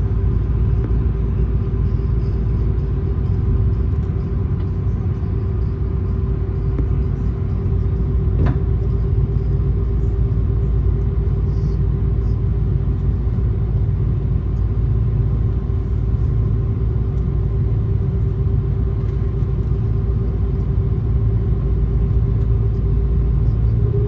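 Jet airliner engines at low power heard from a cabin seat over the wing while taxiing: a deep steady rumble with a steady whine.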